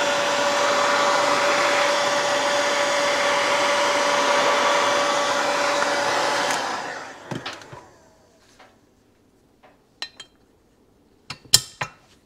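Electric heat gun blowing steadily with a faint hum while it heats an aluminium crankcase's bearing boss, switched off about six and a half seconds in and fading out over about a second. Then a few sharp knocks and clicks, the loudest near the end.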